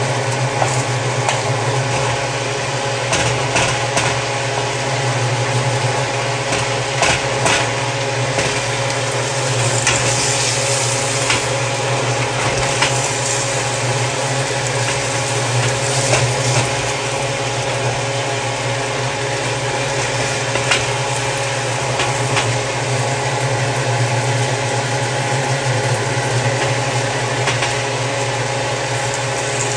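A steady mechanical hum from a running motor, with scattered short clicks and scrapes of a plastic slotted spatula against a nonstick frying pan.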